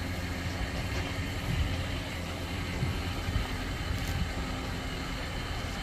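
Heavy vehicle's engine running steadily, low and even, with a few faint knocks over it.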